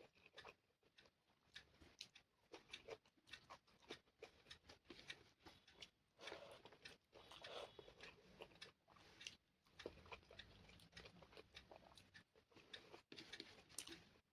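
Faint, close-up chewing and eating of rice with chicken curry, with many short, irregular mouth clicks and smacks.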